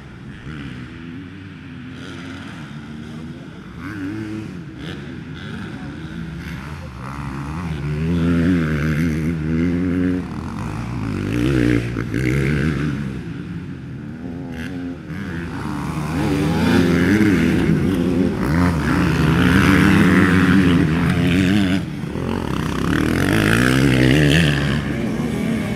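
Several motocross dirt bikes revving up and down as they ride the track, with the engine pitch rising and falling through the throttle changes. They grow louder from about eight seconds in as they come closer.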